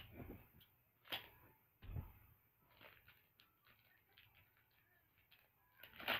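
Faint crinkling and rustling of small plastic toy packaging handled in the fingers, in short scattered crackles, with louder ones about one second in, two seconds in and near the end.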